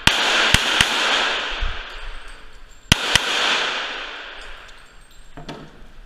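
Semi-automatic pistol firing: three shots in quick succession, then two more about three seconds in. Each shot rings on in a long echo off the walls of the indoor range.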